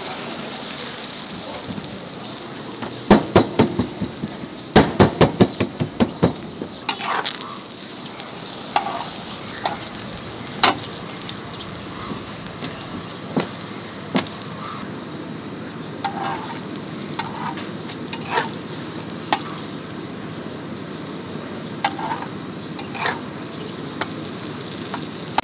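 Paratha frying in oil on a flat griddle, a steady sizzle, with metal spatulas clacking on the griddle: a quick run of strikes about three to six seconds in, then scattered single taps.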